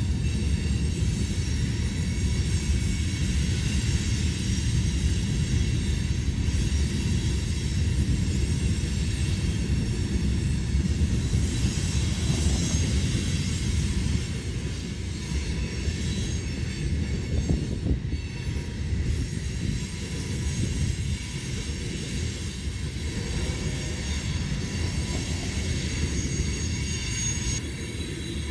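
Loaded freight train of two-bay covered hopper cars rolling steadily past, loud, with a heavy rumble of wheels on rail and a thin high-pitched wheel squeal running over it.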